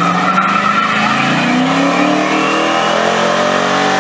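Dodge Challenger's engine revving hard, its pitch climbing steadily from about a second in as the rear tyres begin spinning into a burnout.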